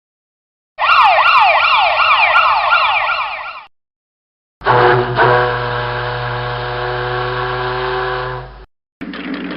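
Emergency vehicle siren sounding in a fast repeating yelp, each sweep falling in pitch about three times a second, cut off after about three seconds. After a short gap comes a different steady, held horn-like tone of several pitches over a low hum, lasting about four seconds and ending abruptly.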